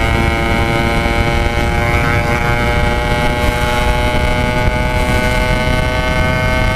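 Yamaha RX-King's single-cylinder two-stroke engine running at steady, fairly high revs through a packing-power aftermarket exhaust, its pitch creeping slowly upward. Wind rumble on the microphone underneath.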